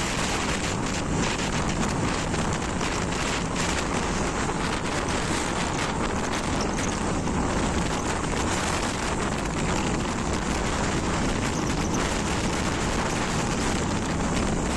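Steady wind rush buffeting a phone microphone on a motorcycle riding at highway speed, with the bike's engine and road noise underneath.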